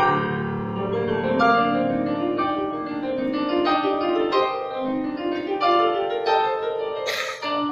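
Instrumental background music: a flowing run of quick, decaying notes on a plucked or struck instrument, with a brief rush of noise about seven seconds in.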